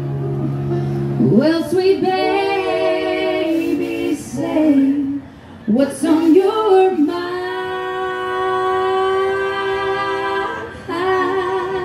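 Women singing a country song live in harmony with little instrumental backing. The phrases end in long notes with vibrato, and one note is held for about three seconds in the second half.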